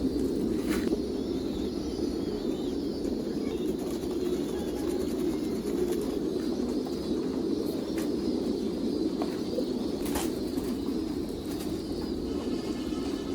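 A flock of domestic pigeons cooing together in a continuous low chorus, with a few short sharp taps or flaps now and then.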